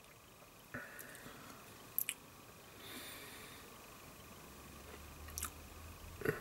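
Quiet room with a few faint clicks and soft mouth noises, the sharpest a quick pair of clicks about two seconds in, as a beer taster savours a mouthful of stout.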